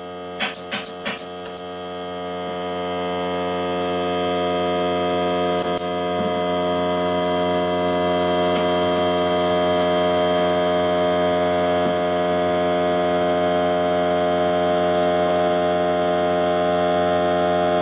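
A few sharp shots from a pneumatic air stapler. Then, about two seconds in, a Greenworks 40 V cordless air compressor's motor kicks on, builds up and runs with a steady hum.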